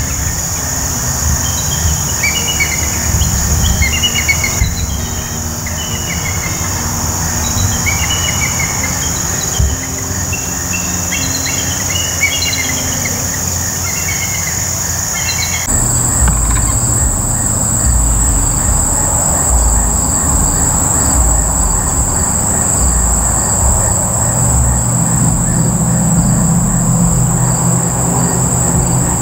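Steady high-pitched drone of insects with short chirping bird calls over low wind rumble on the microphone. About halfway through the drone jumps higher in pitch at an abrupt change, the bird calls stop, and a low steady hum joins in near the end.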